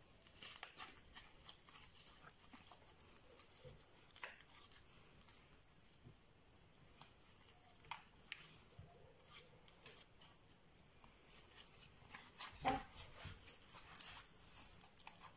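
Slime being stretched and kneaded by hand: irregular soft sticky clicks and crackles from the fluffy slime pulling apart and folding. A louder short sound comes about three seconds before the end.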